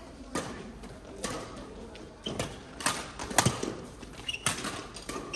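Badminton rally: rackets striking the shuttlecock in a run of sharp hits, about one a second at first and then in quicker pairs, with the loudest hit past the middle.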